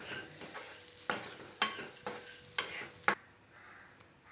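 Spatula stirring and scraping a dry jackfruit-seed stir-fry (poriyal) in a frying pan over a light sizzle, knocking against the pan about twice a second. The stirring stops about three seconds in.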